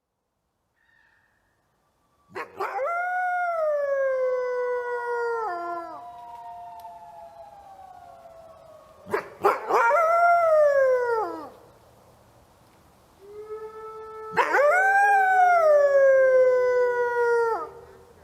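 Canine howling: three long howls, each rising briefly and then sliding down in pitch, with fainter howls from a second animal overlapping between them.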